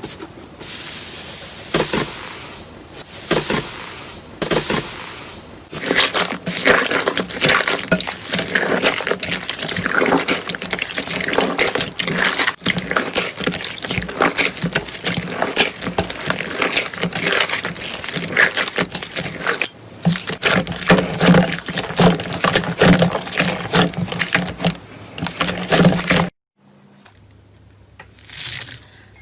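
Slime being squeezed and worked by hand: dense wet clicking, popping and squelching, thicker from about six seconds in, stopping suddenly near the end before a quieter, sparser stretch.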